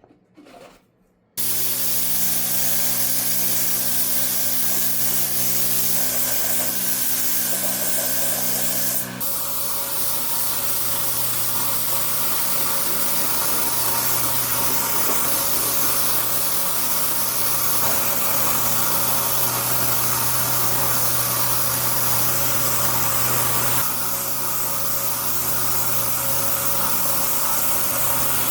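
Steady hiss of a pressurized spray over a steady motor hum. It starts abruptly about a second in and shifts in tone suddenly twice, near 9 s and near 24 s.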